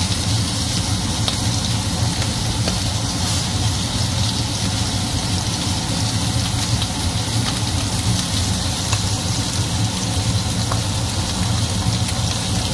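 Rib-eye steak sizzling in a very hot frying pan over a gas flame at full heat, with small crackles of spattering fat, over the steady low hum of a running fan.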